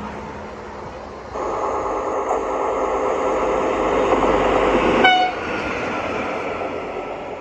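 Air horn (typhon) of a Banedanmark rail maintenance trolley sounding one long blast of about four seconds, starting about a second in, over the rumble of the rail vehicle.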